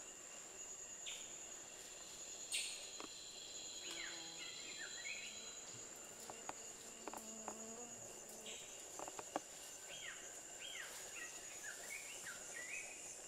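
Faint rainforest ambience dominated by a steady, high-pitched insect drone. Groups of short falling chirps come in twice, and a few sharp clicks sound, like twigs snapping.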